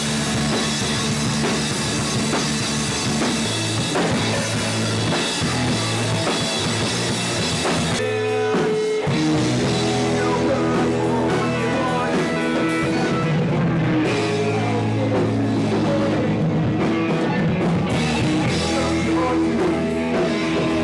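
Rock band playing live on electric guitars and a drum kit, loud and steady, with a brief break about eight seconds in before the full band comes back in.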